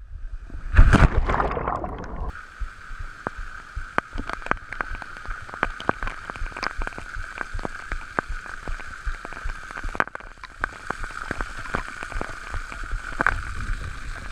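Water splashing and gurgling at a waterfall pool: a loud splash about a second in, then steady sloshing and bubbling with many small pops.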